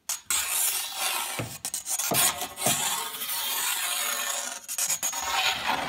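Steel ruler scraping along the floor under a sofa, a rasping scrape in several strokes.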